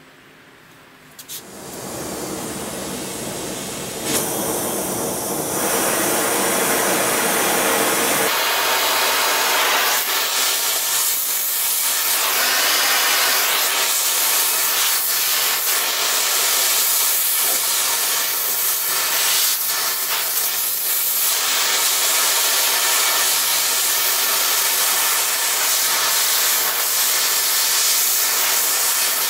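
Primeweld TIG 225X welder's arc burning steadily on carbon steel, a continuous hiss that comes in about a second in and grows louder a few seconds later.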